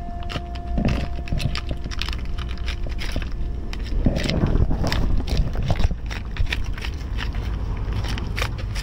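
Tabby cat eating wet canned cat food from a foil tray close by: many small wet clicks of chewing and licking. Under it runs a steady low rumble, louder for a couple of seconds about four seconds in.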